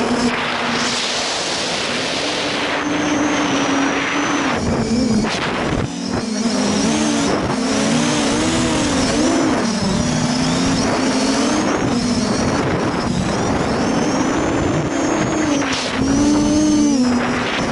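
Quadcopter's brushless motors (Sunnysky 2212 1400Kv) spinning 8-inch propellers in flight, a continuous buzz whose pitch rises and falls again and again as the throttle changes, over a rushing noise of air across the on-board microphone.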